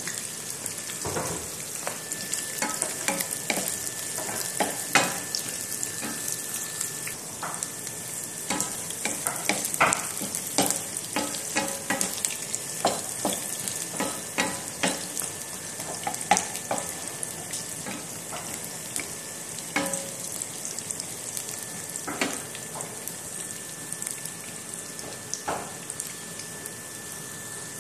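Sliced onions sizzling in hot oil in a nonstick pan, with a wooden spatula scraping and knocking against the pan in irregular clicks as they are stirred to brown.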